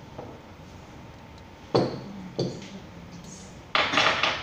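Glass vases and glassware knocking and clinking on a tabletop as they are handled. There are two sharp knocks a little over half a second apart, then a brief, louder burst of clatter near the end.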